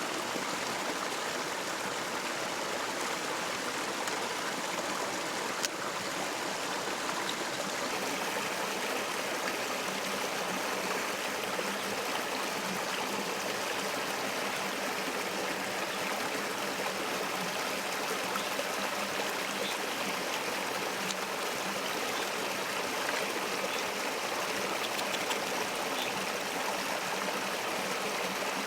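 Water of a river or stream flowing steadily in an even, unbroken rush, with a single sharp click about six seconds in.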